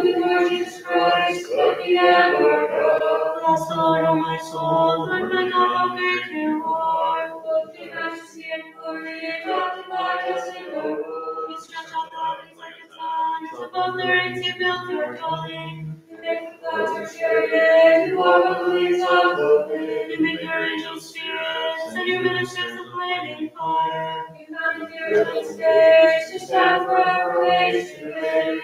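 Unaccompanied Byzantine liturgical chant of Vespers, several voices singing together in slow phrases of held notes.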